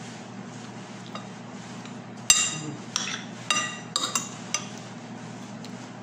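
A metal spoon clinking against ceramic dishes: about six sharp, ringing clinks in quick succession between two and five seconds in, over a low steady hum.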